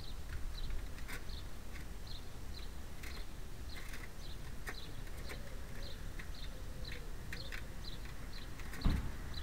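Sparrows chirping: short, high chirps repeated two or three times a second, over a steady low hum. A single thump sounds just before the end.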